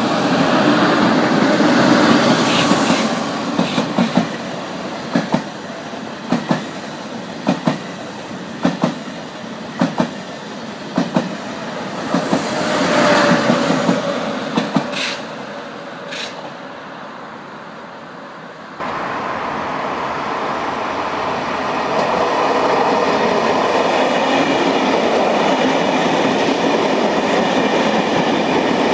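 TGV high-speed trains rolling past, their wheels clacking over rail joints about once a second over a rushing roll. After a sudden change, a TER train of passenger coaches rolls by with a steady, even rumble.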